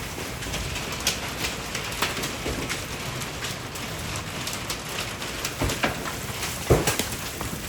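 Freezing rain falling steadily in an ice storm, with scattered sharp ticks and clicks throughout and one louder impact about seven seconds in.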